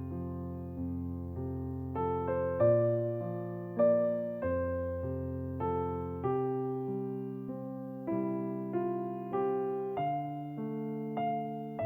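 Background music: a slow, gentle piano piece, chords and bass notes struck about once a second, each note dying away before the next.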